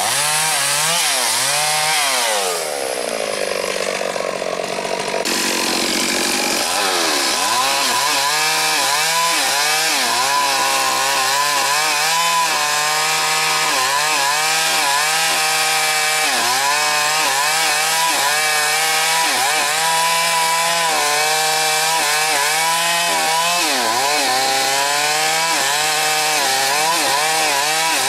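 STIHL MS 382 two-stroke chainsaw cutting a durian trunk. Its revs fall away to idle about two seconds in; from about six seconds it runs at full throttle in the cut, its pitch repeatedly dipping and recovering as the chain bites into the wood.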